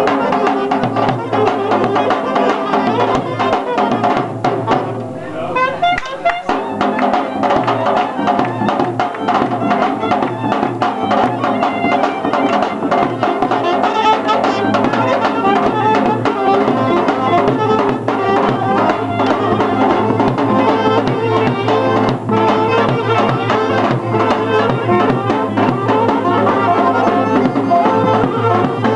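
Live folk band with accordion and a large double-headed drum playing a lively dance tune with a steady beat for a circle dance.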